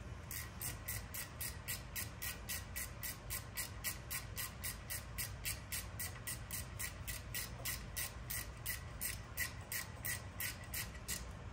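Ratchet wrench clicking steadily, about four clicks a second, as a bolt on the engine's cam chain tensioner is tightened.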